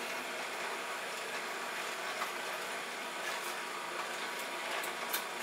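Omega VRT350 masticating juicer running steadily and quietly, with a few faint clicks. The auger takes in a hard pineapple piece with hardly any change in the sound; the machine is working normally.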